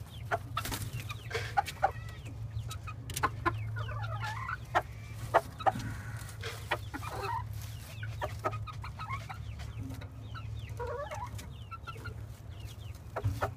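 Silver Sebright bantam chickens clucking in short, scattered calls, with wing flapping and sharp clicks among them. A low steady hum runs underneath.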